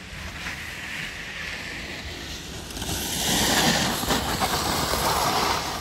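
Wind buffeting the microphone: a steady low rumble under a rushing hiss that grows louder about three seconds in.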